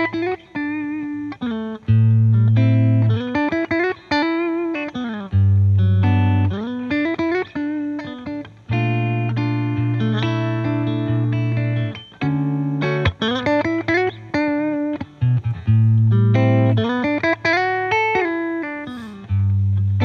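Electric guitar music: a melodic lead line with frequent string bends over sustained low notes.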